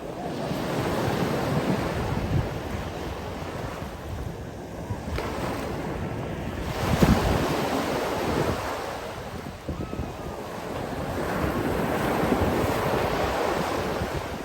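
Sea waves breaking and washing in, swelling and easing about three times, the strongest surge about halfway through, with wind rumbling on the microphone.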